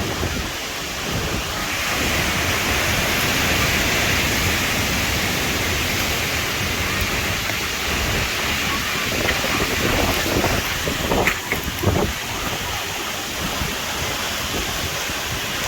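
Heavy rain and strong gusting storm wind, with wind buffeting the microphone. A few sharp clicks come close together about three-quarters of the way through.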